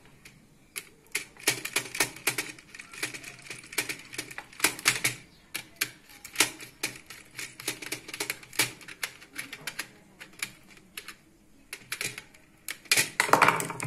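Irregular sharp clicks and taps of a screwdriver working the terminal screws and plastic modules of a modular switchboard, with a louder clatter near the end.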